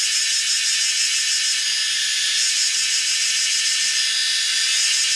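A steady, high-pitched hiss that does not change.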